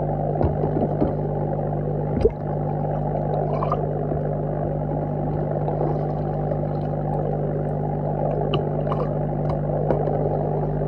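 Steady underwater hum of a pond aerator, the air pump and bubbling air stone carried through the water, with scattered faint clicks and one sharper knock about two seconds in.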